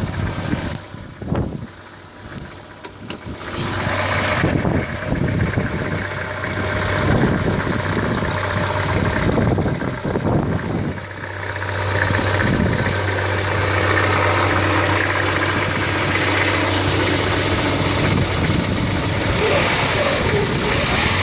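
Year-2000 Hyundai Coupe's 2.0-litre four-cylinder engine running, making the strange noise its owner is asking about. The sound grows louder about four seconds in, then holds steady.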